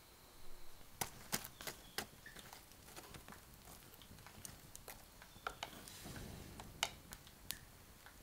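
Wood campfire crackling, with irregular sharp pops and snaps from the burning logs.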